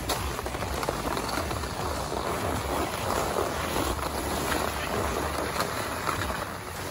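Steady rushing scrape of skis sliding over hard-packed, groomed snow, mixed with wind rushing over the microphone.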